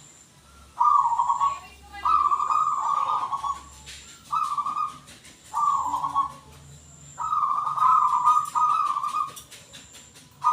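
Zebra dove (perkutut) cooing: a run of soft, rippling coos, about half a dozen phrases, each repeated after a short pause.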